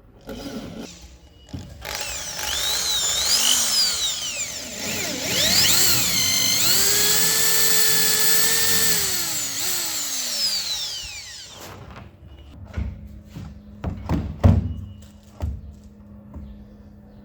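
An electric power tool's motor whining, its pitch rising and falling as it speeds up and slows, holding steady for a couple of seconds, then winding down about eleven seconds in. A few knocks follow near the end.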